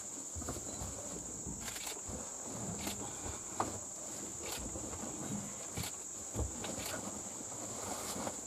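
Steady high-pitched drone of an insect chorus, with low rumbling and a couple of short knocks, one about midway and one near the end.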